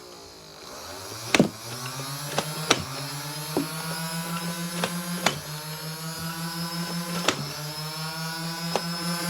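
Nerf Mega blaster firing: an electric motor spins up about a second in and hums steadily, with about eight sharp shots at uneven intervals as darts are fired.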